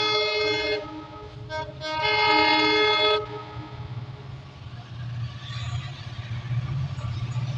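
Locomotive air horn of an approaching train sounding a steady multi-tone chord: a blast that cuts off about a second in, a brief toot, then a second blast ending about three seconds in. After that comes the low rumble of the train drawing nearer.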